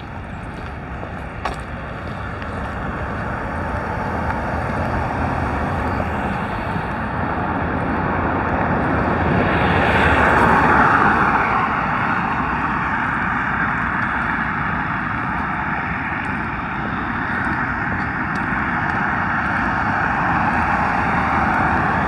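Road traffic passing on a multi-lane road: the whoosh of tyres and engines swells to a peak as a vehicle goes by about halfway through, eases off, then builds again near the end.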